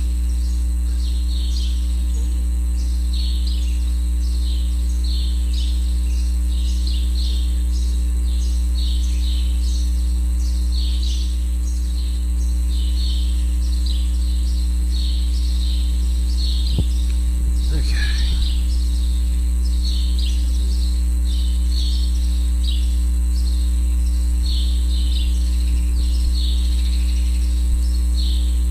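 Loud, steady electrical mains hum, with short high chirps repeating about twice a second throughout and one brief falling squeal about two-thirds of the way through.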